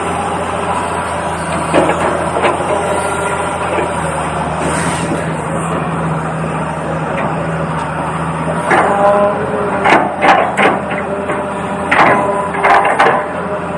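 Small geared electric motors of a toy RC excavator whirring steadily, with a run of sharp plastic clicks and knocks in the last few seconds.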